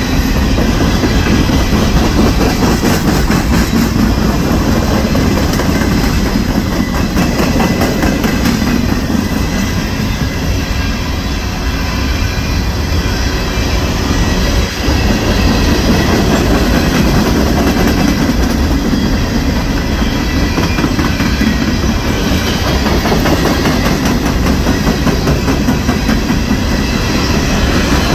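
Norfolk Southern double-stack intermodal freight train rolling past at close range: container-laden well cars making a steady, loud rumble, with a rapid run of wheel clicks over the rail joints.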